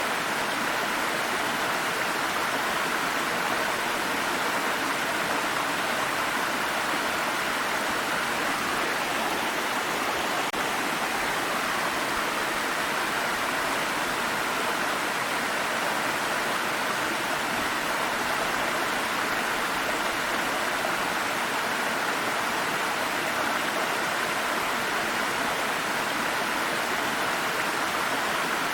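A water stream flowing over rocks: a steady, even rush of running water.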